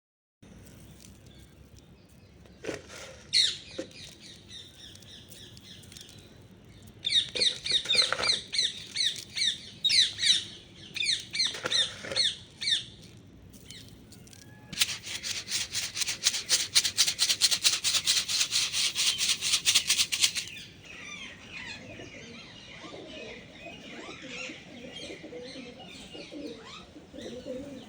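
Ringneck (rose-ringed) parakeets calling in high-pitched repeated screeches, once about three seconds in and then in a dense run for several seconds. Midway comes a fast, even run of wingbeats, about nine a second, lasting some five seconds. Softer low pigeon cooing and chirps follow near the end.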